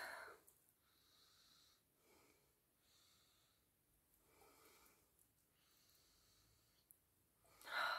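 Mostly near silence, with faint repeated sniffs as a person smells perfume on her skin. A louder breath comes near the end.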